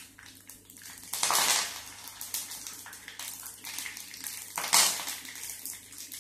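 Hot oil sizzling steadily in an iron kadai as ingredients fry, with two louder bursts of sizzle or spatter, one about a second in and one near five seconds.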